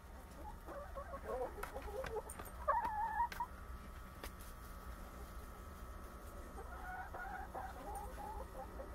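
A chicken clucking in short calls, with one louder, higher call about three seconds in and a further run of clucks near the end.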